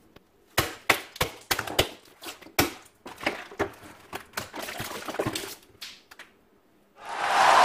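Eggs being smashed on a kitchen countertop: a rapid, irregular run of sharp knocks and cracks as shells break and objects slam down on them. About seven seconds in, a loud steady hiss starts.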